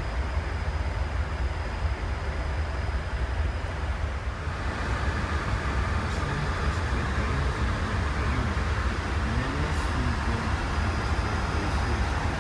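Steady flight-deck noise of an Airbus A340-600 in descent: rushing airflow over a deep, continuous low rumble, with a faint high steady tone. The rush grows a little fuller about four and a half seconds in.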